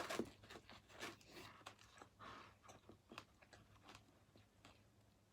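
A person chewing pizza crust with the mouth close to the microphone: a run of small crunches and wet mouth clicks, busiest in the first couple of seconds and thinning out after that.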